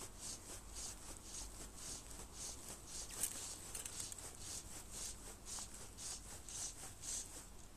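Fly line being stripped in by hand through the rod guides and fingers: a run of short rasping zips, about two or three a second, with one sharper click about three seconds in.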